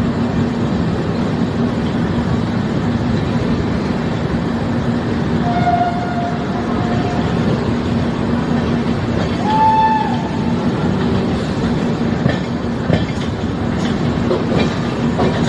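Passenger train running with a steady rumble and hum. Two short horn sounds come through, the second higher and louder, and rail-joint clicks come in near the end.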